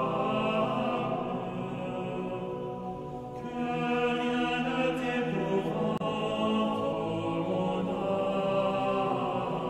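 Background music: a slow sung chant with long held notes, the notes changing a little past three seconds in.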